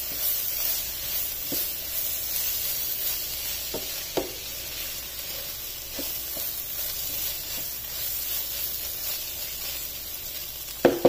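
Beef mince and peas sizzling in a frying pan while a wooden spatula stirs them through, with a few short taps of the spatula against the pan. A spoonful of flour has just been mixed in.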